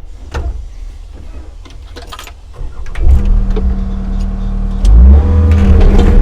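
Excavator's diesel engine and hydraulics working, with a few knocks at first; about three seconds in the engine note steps up to a steady drone, and it rises again, louder and higher, about five seconds in as the throttle or load comes up.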